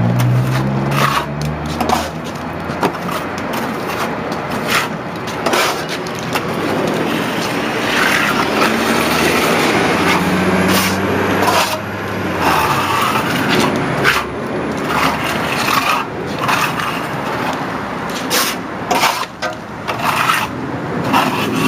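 Stucco being spread and worked on a wall with a hand plastering tool: repeated scraping strokes with frequent short sharp knocks.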